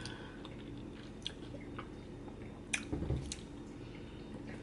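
Close-miked mouth sounds of a person eating gelato with cookie bits and caramel: quiet chewing and smacking, with a few sharp clicks and a short low thud about three seconds in.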